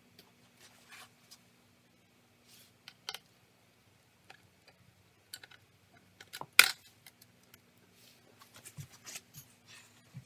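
Hands handling a laptop and a screwdriver: scattered small clicks and scrapes, with one sharp loud click about six and a half seconds in.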